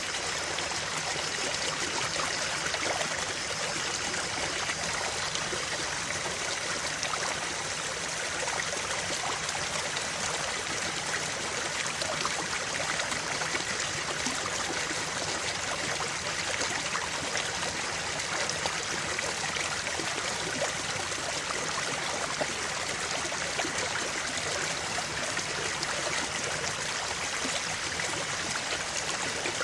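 Creek water flowing and trickling steadily over stones, a continuous even babble.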